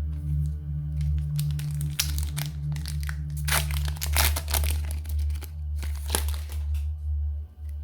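Crinkly plastic packaging of a Pokémon trading card box being handled in quick, irregular bursts, densest in the middle and dying away near the end. A steady low drone runs underneath.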